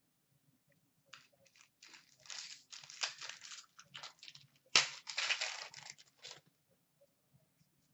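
Foil wrapper of a hockey card pack crinkling and tearing in the hands in a run of rustles, starting about a second in and stopping shortly after six seconds, with one sharp crack just before five seconds in.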